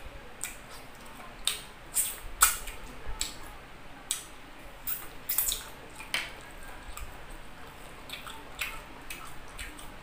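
Open-mouthed chewing with wet lip smacks and mouth clicks as a man eats rice and boiled chicken with his fingers. The clicks come irregularly, thicker in the first half and sparser toward the end.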